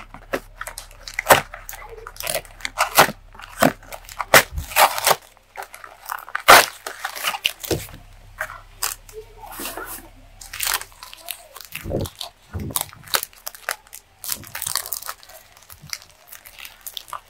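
Cardboard box flap torn open, then the crinkly wrappers of Kinder Happy Hippo bars handled and one torn open: a dense run of sharp crackles and rips.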